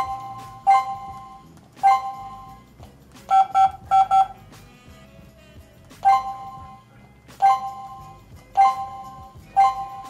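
Touch keypad of a CS108 WiFi/GSM alarm control panel beeping at each key press: short, ringing two-note beeps at irregular intervals of about a second, with a quick run of four beeps about a third of the way in.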